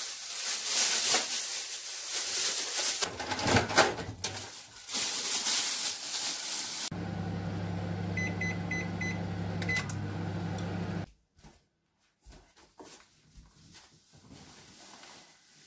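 Plastic bag crinkling loudly as a wet towel is wrapped in it, then a Panasonic Genius 1100 W microwave oven: a few short keypad beeps and a steady electric hum while it runs, which cuts off suddenly about eleven seconds in. Faint scattered knocks follow.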